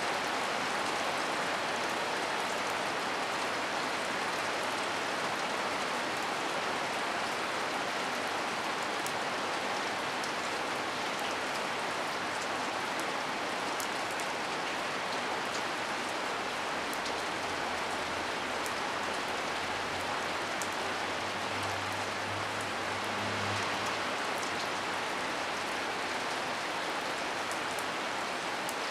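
Hard rain falling steadily, with scattered sharp ticks of drops striking nearby. A faint low hum swells and fades a little past the middle.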